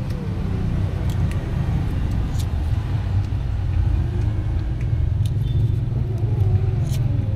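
A steady low engine-like rumble, with a few sharp light clicks scattered through it.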